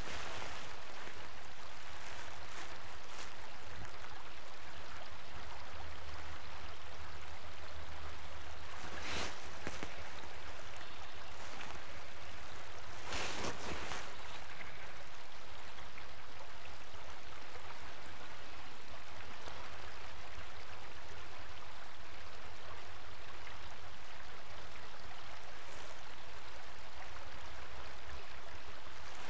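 Steady rushing of a river flowing past the bank, with two brief louder rushes about nine and thirteen seconds in.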